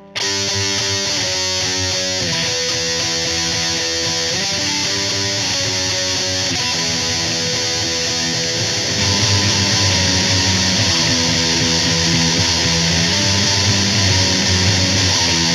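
Instrumental rock intro: a distorted electric guitar plays a repeating chord riff over a steady beat, and the band grows louder about nine seconds in.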